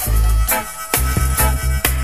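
Roots reggae band recording: a deep bass line under regular drum and cymbal hits, with a held instrumental note above.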